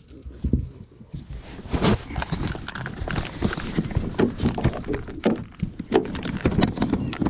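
Rapid, irregular knocks and thumps in a small boat as a freshly caught mulloway is picked up off the deck and handled.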